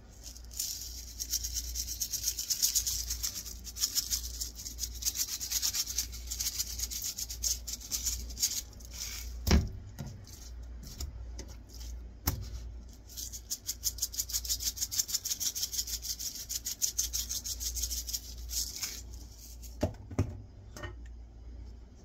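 Spice shaker shaken quickly over raw steak, the seasoning granules rattling inside in a fast, even run of shakes, then a second run after a short pause. A few sharp knocks come around the middle and near the end.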